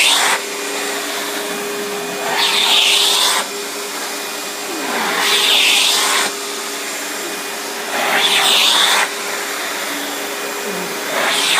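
Riccar 10-amp bagged vacuum cleaner running with a steady motor hum. About every three seconds a louder rushing hiss swells for roughly a second as the nozzle is worked over the rug.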